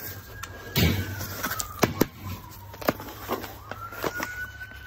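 A knife slitting the packing tape on a cardboard box, then the flaps being worked open, giving several sharp scrapes and knocks about a second apart. A faint thin whine that slowly dips and rises in pitch runs under it.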